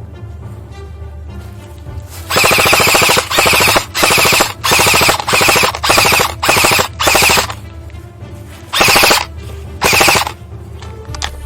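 Airsoft rifle firing about ten short full-auto bursts of rapid shots, starting about two seconds in, with a gap before the last two bursts. Background music plays underneath.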